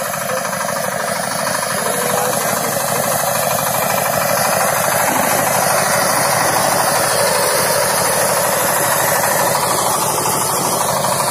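Kirloskar Mega T 15 compact tractor's single-cylinder diesel engine running steadily with a fast, even knock, powering the sanitizer spray pump through its hose.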